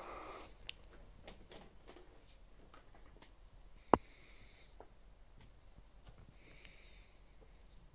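Quiet room with scattered faint clicks and one sharp click about four seconds in, the loudest sound; two brief soft hisses follow later.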